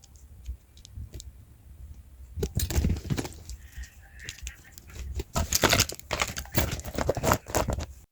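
Irregular rustling and clicking noises in bursts, growing louder and denser in the second half.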